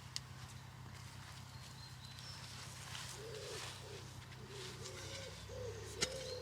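A pigeon cooing in a run of low, soft, repeated coos that starts about halfway through. There is a faint tick near the start and a short knock near the end.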